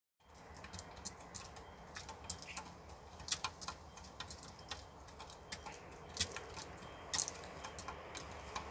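Chickens pecking at feed: irregular sharp taps of beaks against a ceramic feed bowl and the coop floor, with a few louder taps.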